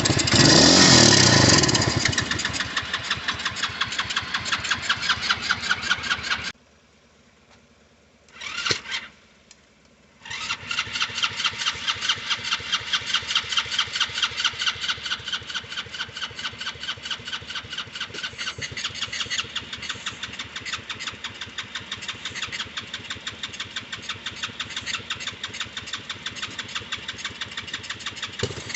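Starter cranking a kids' 110cc ATV engine in fast, even pulses, turning it over without it catching: the owner suspects a dirty carburetor starving it of fuel. It surges louder in the first two seconds, stops about six seconds in apart from one short blip, then cranks on again from about ten seconds.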